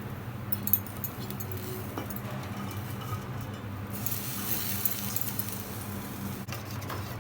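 Spoon stirring a thick batter of jaggery syrup, mashed banana and flour in a metal vessel, with light scattered clinks, over a steady low hum.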